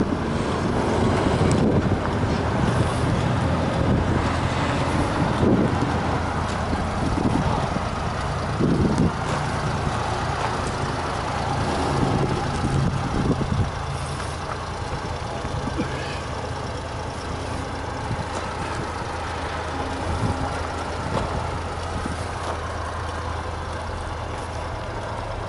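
Suzuki Carry kei truck's 550 cc three-cylinder engine idling steadily.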